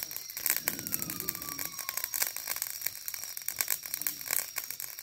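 Wood fire crackling and popping in a small metal brazier: a dense, irregular run of sharp crackles with sparks flying.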